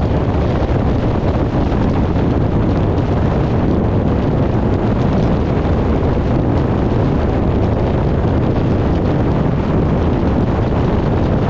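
Steady, loud wind rumble buffeting the microphone.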